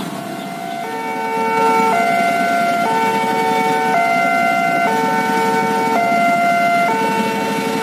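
Railway level-crossing electronic alarm sounding, a two-tone high-low pattern that switches about once a second and starts about a second in. Idling road traffic rumbles underneath.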